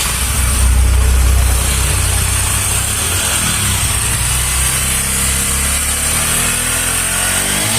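Bajaj Discover 125 single-cylinder four-stroke engine idling steadily, a little louder about a second in. After the worn valve seat guides in the head were repaired, the engine sounds fine, with no bad noise.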